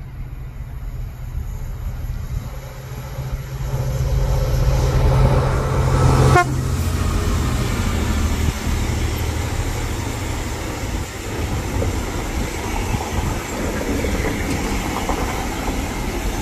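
Class 66 diesel freight locomotive's engine growing louder as it approaches, with a quick falling whine as it passes about six seconds in, then the steady rumble and clatter of a long train of box wagons rolling by.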